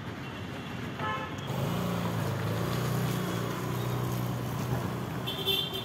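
Street traffic: a motor vehicle's engine runs close by for a few seconds with a steady low hum, and short horn toots sound about a second in and again near the end.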